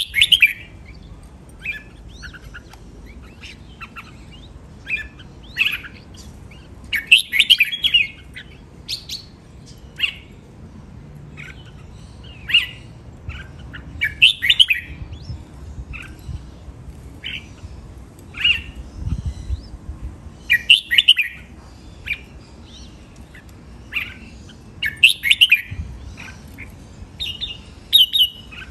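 Red-whiskered bulbul singing: short, bright phrases of quick chirping notes, repeated every one to three seconds.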